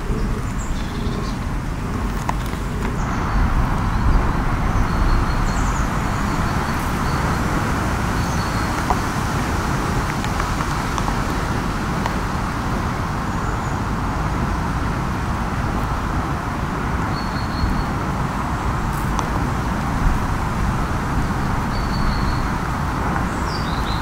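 Steady rain hiss over a low rumble, with short high bird chirps now and then.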